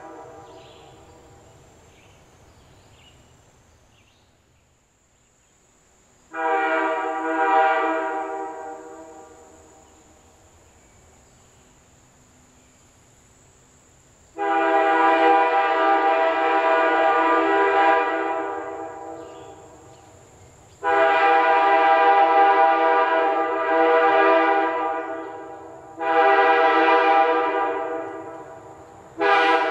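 Nathan AirChime K3L three-chime train air horn with a sand-cast bell set, blown in full chord. One blast comes about six seconds in, then a long, long, short, long sequence like a grade-crossing signal.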